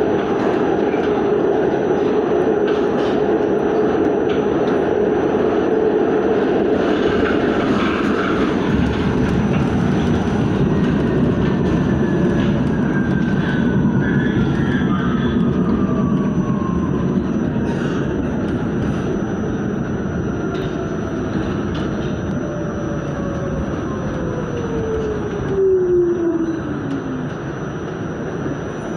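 New York City subway train running along the track with steady rumble and wheel noise. From about a third of the way in, the electric traction motors' whine falls steadily in pitch, the sign of the train slowing down.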